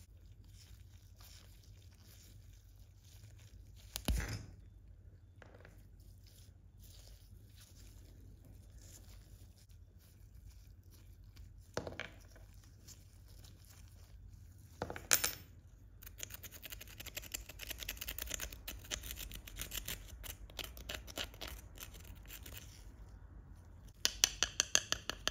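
Hand tools working on a small die-cast model car: scattered light ticks and three sharper knocks, then about six seconds of rapid scraping, and near the end a fast run of loud clicks.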